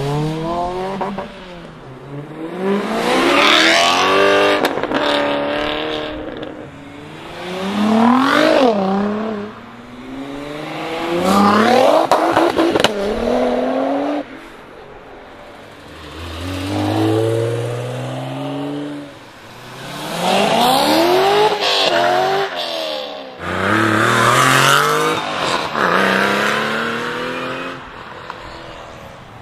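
Sports cars accelerating hard one after another, about seven in turn. Each engine note climbs in pitch and drops back as it shifts gears, then fades.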